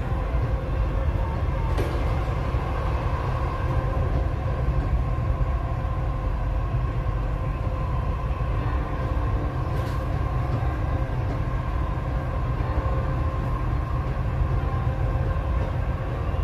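Dubai Metro train running, heard from inside the carriage: a steady low rumble with a steady whine over it, and two brief clicks, one about two seconds in and one near ten seconds.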